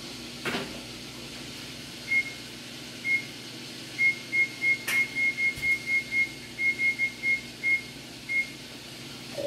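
Kitchen appliance keypad beeping as buttons are pressed: about seventeen short, high beeps at one pitch, some single and some in quick runs, as a cooking time is keyed in. A knock about half a second in.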